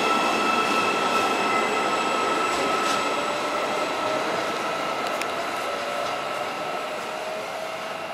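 Hyundai Rotem HRCS2 Intercity+ electric train pulling away, with a steady high whine from its electric traction equipment and a lower whine that slowly rises in pitch as it gathers speed. The sound fades as the train leaves, with a few light clicks from the wheels.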